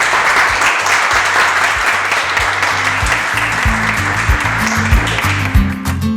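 Applause right after a winner is named in a prize draw. About halfway through, background music with a steady beat comes in, and near the end the clapping stops and the music carries on alone.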